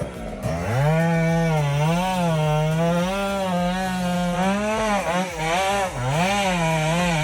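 Chainsaw revving up about half a second in, then running at high revs with a wavering pitch that dips briefly several times, as when the chain bites into wood.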